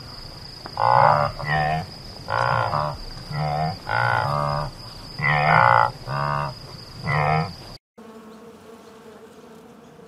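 Scimitar oryx calling: about eight short, low calls, mostly in pairs, over a steady high-pitched whine. The sound cuts out just before the end, and then a faint, steady honeybee buzz follows.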